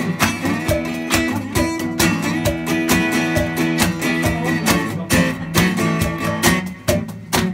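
Acoustic guitar strummed in a steady rhythm, playing a song.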